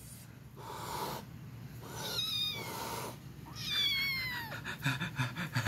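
Tabby cat meowing twice, each call sliding down in pitch, the second longer. A run of short ticks follows near the end.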